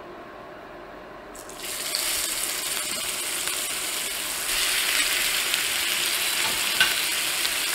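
Strip steaks sizzling in hot clarified butter in a cast iron skillet. The sizzle starts about a second and a half in as the first steak goes into the pan, and gets louder midway as the second steak is added.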